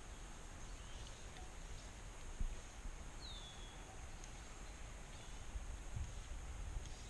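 Faint outdoor ambience: a bird gives one short falling call about three seconds in, with a few fainter chirps, over a low rumble and a steady high hiss.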